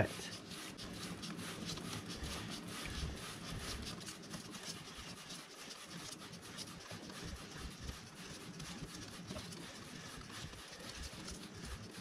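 A hand trigger spray bottle squirting kerosene onto a motorcycle drive chain again and again, each pull of the trigger giving a short spritz.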